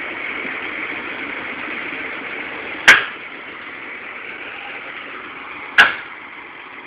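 A vehicle engine idling steadily, with two sharp, loud bangs about three seconds apart.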